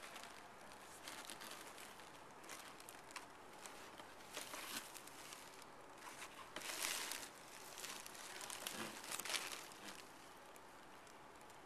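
Irregular rustling and crinkling from a cat shifting about inside a cardboard box, in short bursts that grow louder past the middle.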